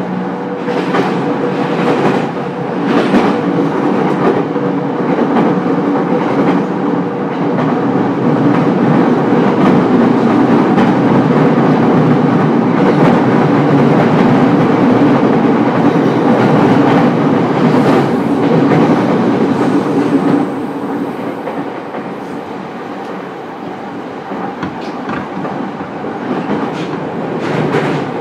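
JR East E231-series commuter EMU running, heard from inside its motor car: a steady hum from the running gear and wheels clicking over rail joints. It is loudest through the middle and eases off about two-thirds of the way through.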